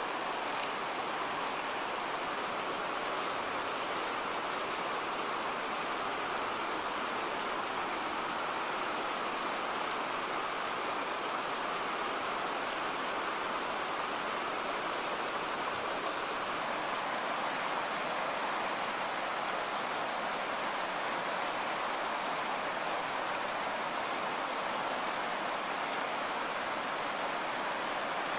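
Steady rush of flowing river water, with a continuous high-pitched insect drone over it.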